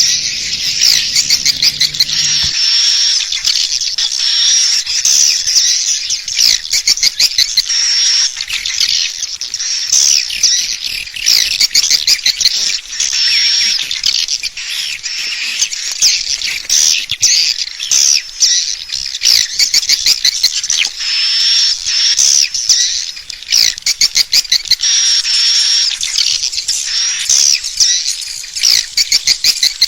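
Swiftlet calls: a dense, repeating stream of high chirps and rapid clicking trills, the call sound played to lure swiftlets into a nest house. A low steady hum underneath stops about two and a half seconds in.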